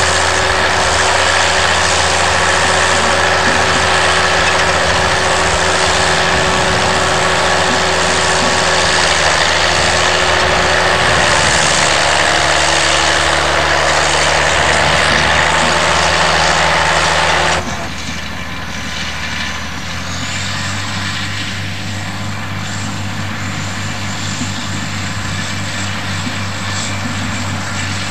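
Bulldozer's heavy diesel engine running steadily and loudly. About two-thirds of the way in, the sound drops suddenly to a quieter, lower running note.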